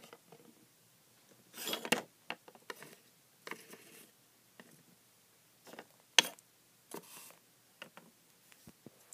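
Handling noises of small plastic toy figures and paper props being moved on a surface: a rustle about two seconds in, then scattered light clicks and taps, the sharpest about six seconds in.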